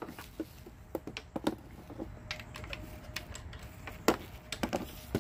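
Irregular light clicks and taps of hand tools, a socket and extension being handled and fitted to the belt tensioner bolt, with a couple of louder knocks.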